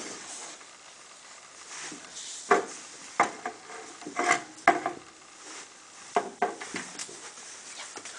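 Handling noises: a paper sheet rustling, with a string of irregular knocks and clicks as things are moved about on a table, most of them in the middle of the stretch.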